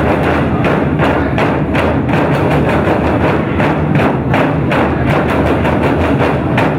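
Festive drum music: a fast, steady beat of drum strokes and sharp wood-block-like knocks, several a second, over a fuller musical backing.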